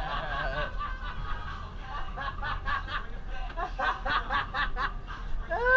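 A person snickering: a run of short laughs, about five a second, starting about two seconds in.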